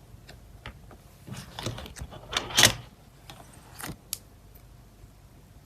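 Photocards and plastic packing materials being handled: scattered light clicks and crinkly rustles, the loudest a burst of crinkling about two and a half seconds in.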